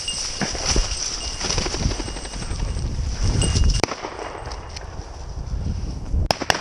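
Shotgun shots during a bird hunt: one sharp report about four seconds in and two quick reports near the end, over rustling of brush and footsteps.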